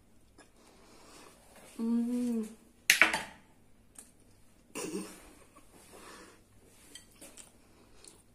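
Closed-mouth chewing of ravioli with small mouth clicks, a short hummed 'mmm' about two seconds in, and a sharp clink of a fork against the ceramic plate just after, the loudest sound. A breathy mouth sound follows near five seconds.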